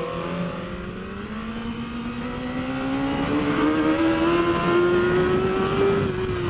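BMW S1000RR's 999 cc inline-four engine accelerating hard, its pitch climbing steadily for about six seconds and easing off slightly near the end.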